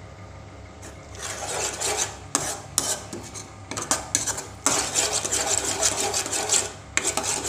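A spatula scraping and stirring thick chhana paste around a metal kadai in repeated strokes, with clicks where it knocks the pan. It is quieter for about the first second, then the strokes come steadily.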